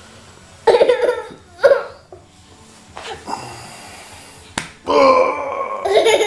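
A toddler's short excited vocal sounds, then a single sharp hand slap as she smacks her father, followed by her laughing.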